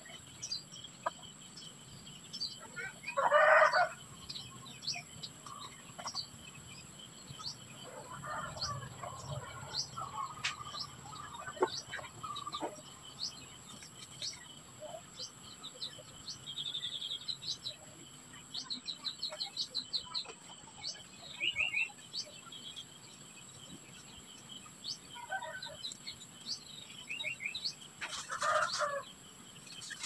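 Small birds chirping with short calls and a few quick trills over a steady high insect drone. A rooster crows loudly twice, a few seconds in and again near the end.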